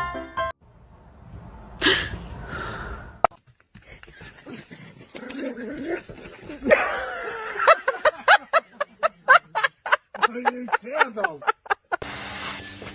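A dog making odd vocal noises: wavering, pitched whine-like calls, then a quick run of short sounds about four a second.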